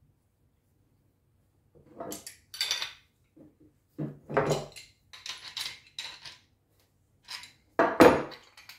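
Steel wrenches and metal pipe fittings clinking and clanking as they are handled and set down on a wooden workbench: a string of short clatters beginning about two seconds in, the loudest clank near the end.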